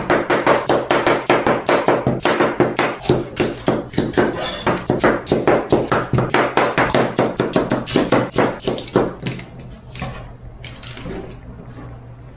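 Kitchen knife chopping raw potatoes on a plastic cutting board: quick knocks of the blade on the board, about four a second, thinning out and getting quieter about nine seconds in.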